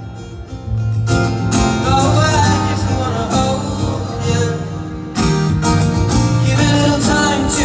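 Live music over a stadium PA, heard from within the crowd: acoustic guitar with a male voice singing. It swells about a second in.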